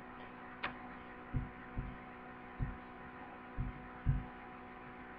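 Steady electrical hum made of several fixed tones, with a single sharp click about half a second in and about five soft, low thumps at uneven spacing.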